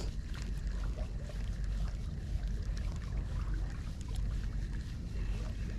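Steady low rumble of wind on the microphone by the sea, with a few faint small ticks.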